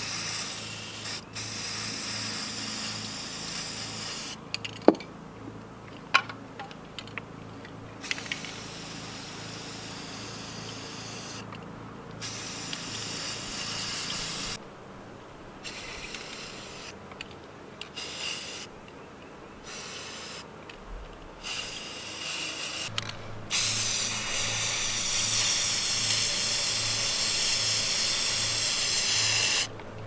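Aerosol spray paint cans hissing in repeated bursts of varying length onto water in a dipping tub, laying down the paint film for aqua (hydro) dipping. A few sharp clicks sound about five to six seconds in, and the longest, loudest burst of spray starts near the end.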